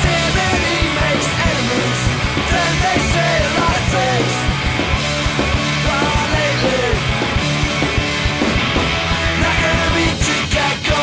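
Rock band playing a song with electric guitars, bass and drums, loud and steady, with a melodic line bending up and down in pitch over it.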